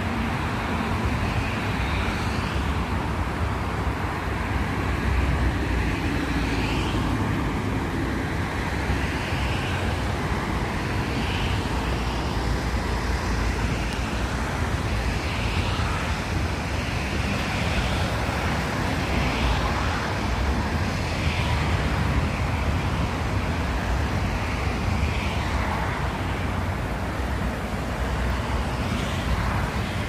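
Steady rushing outdoor noise with a low rumble of wind on the microphone.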